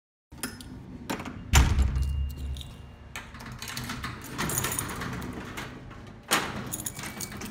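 A door and metal gate being worked with keys: keys jangling, latch and lock clicks, and a heavy thud of a door shutting about one and a half seconds in, with another sharp metallic clack near the end.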